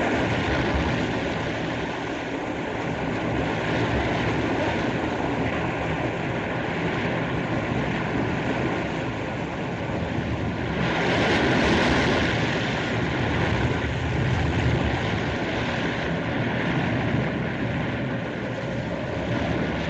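Sea waves and rushing water from a 1940 film soundtrack, a steady wash of noise that swells about eleven seconds in.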